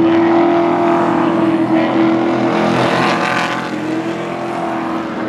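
Pro Truck race trucks' engines running at speed as a pack of three passes on the oval, with a steady engine tone throughout and the loudest pass about three seconds in.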